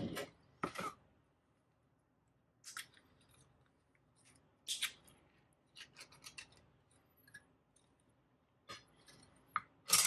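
Ring-pull sardine tin being opened by hand: a series of sharp metallic clicks and scrapes as the tab is lifted and the thin lid is peeled back. The loudest clicks come near the start and near the end.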